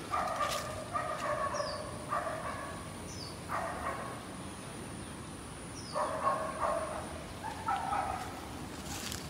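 Repeated short calls from birds, about six in a few seconds, with a few brief high falling chirps between them.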